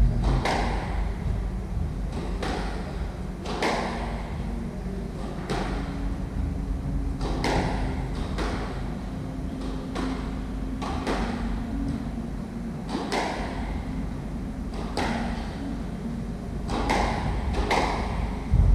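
A squash rally: the ball cracking off rackets and walls about once a second, each hit echoing around the court, with a louder thump near the end.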